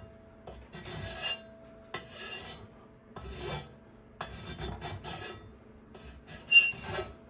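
Hand file rasping in a series of strokes, about one a second, across the powder-coated lip of a metal bike frame tube, scraping off built-up powder coating so the seat will press on.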